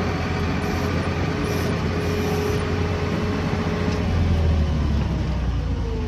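New Holland skid steer's diesel engine running steadily.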